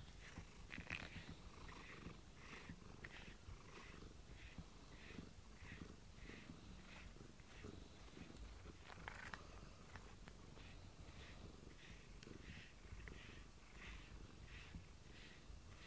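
Domestic cat purring faintly close up, a low steady purr with a soft rustle about twice a second.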